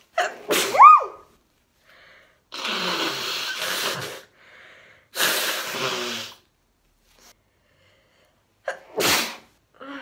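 A woman sneezes with a rising, loud voiced cry about a second in, then blows her nose hard into a tissue twice, each blow a long noisy rush of about a second and a half, and gives a short sharp sneeze near the end.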